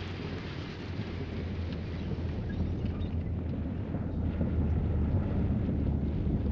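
Twin-engine propeller airplane with radial engines taxiing, its engines giving a steady low rumble that grows a little louder in the second half as it comes closer.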